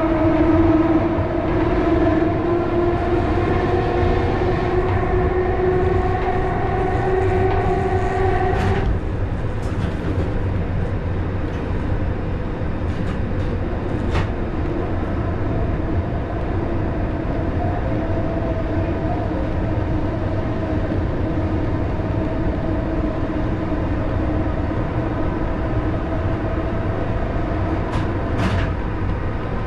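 Vintage electric train heard from inside the driver's cab while it runs: a steady low rumble with a whine from the traction motors. The whine rises slightly in pitch, then drops away abruptly about nine seconds in, leaving a fainter whine under the rumble. A few sharp clicks fall later.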